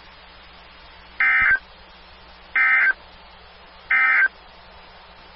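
Emergency Alert System end-of-message (EOM) signal: three short, identical bursts of warbling digital data tone, the 'NNNN' code sent three times to mark the end of the alert. Each burst lasts about a third of a second, with about a second of quiet between them.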